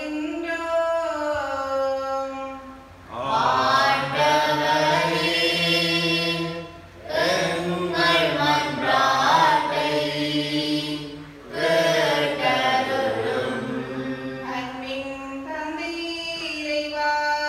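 A woman's amplified solo voice chants a sung liturgical line, answered by a group of men's and women's voices singing together in three long phrases. Her solo chant returns near the end.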